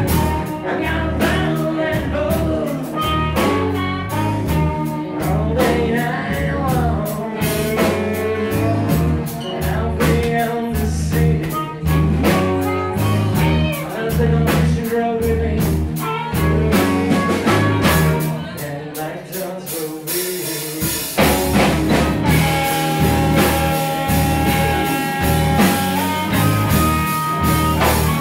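Background music: a blues-rock band with guitar, bass and a steady drum beat.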